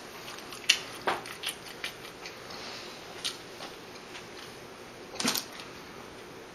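Eating noises from someone eating double cheeseburgers fast: scattered short clicks and smacks, with the loudest cluster about five seconds in.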